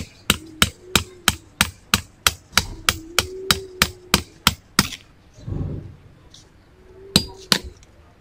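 Hammer tapping the end of a screwdriver used as a punch against a metal part of a sublimation heat press handle. About twenty sharp strikes come at about four a second, stop about halfway through, and two more strikes follow near the end.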